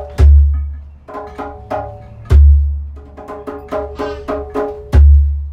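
Djembe played on its own in a steady rhythm: a deep bass stroke about every two and a half seconds, three in all, with quicker, lighter ringing strokes between them.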